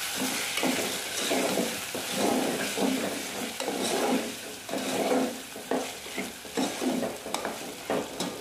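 Metal spatula stirring and scraping chicken curry masala in a metal pot while it fries and sizzles, in strokes about once a second. A few sharp clicks of the spatula against the pot come near the end.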